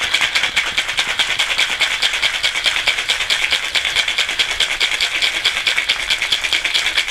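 Ice cubes rattling inside a stainless steel cobbler cocktail shaker that is shaken hard and without pause, a fast, even rhythm of many hits a second. The shaker holds espresso, sugar and ice, shaken to chill and froth a shakerato.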